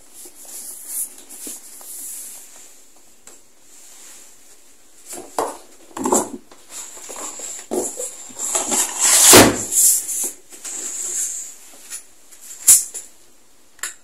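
A rigid cardboard gift box and a paper carrier bag being handled on a table: irregular rustling and scraping with scattered knocks, loudest about nine seconds in, and a sharp knock near the end.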